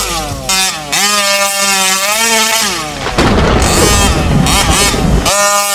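Taylor 50cc two-stroke engine of a large-scale RC truck revving hard, its pitch dropping off and climbing again with the throttle. From about three seconds in to about five, a rough, noisy rumble with no clear pitch takes over, then the high revving returns.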